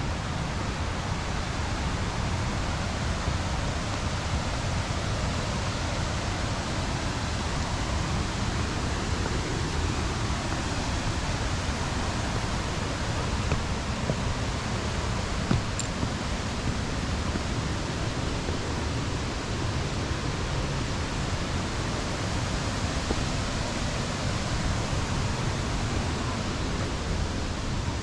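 Steady rushing noise from the waterfall, mixed with wind buffeting the microphone, which gives an uneven low rumble underneath.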